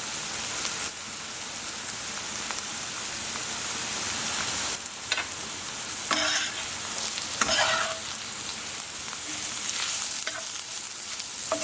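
Pieces of shaggy parasol mushroom sizzling as they fry in oil in a frying pan, with a few short scrapes about halfway through.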